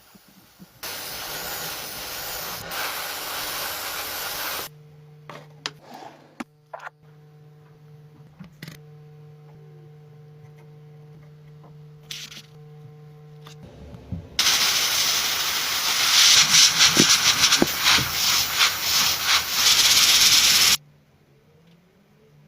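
Paint spray hissing in two long bursts, the first about four seconds and the second about six seconds with a crackle through it. Between them a steady low hum runs with a few small clicks.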